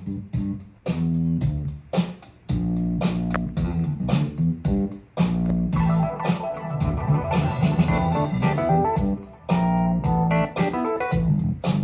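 Instrumental music with guitar and bass, played from an MP3 player through the speakers of a 1965 Packard Bell solid-state console stereo whose amplifier has just been recapped.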